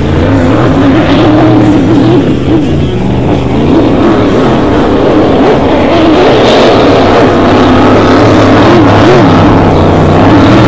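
GP2 hydroplane race boat's engine running hard at speed: a loud, steady drone whose pitch wavers a little, growing slightly louder.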